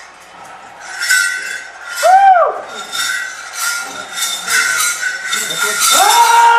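Ritual music with sharp metallic clinks about twice a second over a steady high tone. About two seconds in a short pitched tone arches up and down, and near the end a long horn-like tone swells up and holds.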